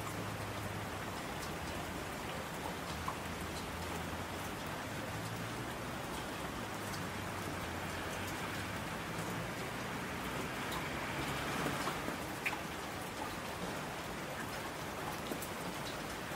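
Steady rain falling, an even hiss with scattered drop ticks, swelling slightly about ten to twelve seconds in, over a faint low hum.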